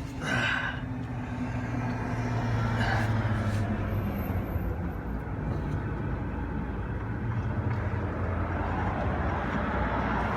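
Steady low mechanical hum from a running motor, with a short noisy rustle near the start.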